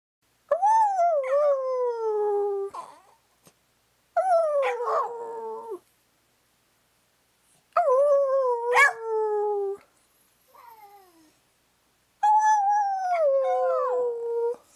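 An Australian shepherd 'talking' in long howl-like calls: four drawn-out calls of about two seconds each, each starting high and sliding down in pitch, with a short faint call between the third and the fourth.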